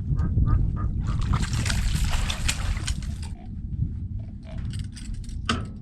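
A small hooked catfish splashing and thrashing at the water's surface beside the boat as it is brought in, for about two seconds starting about a second in, over a steady low rumble.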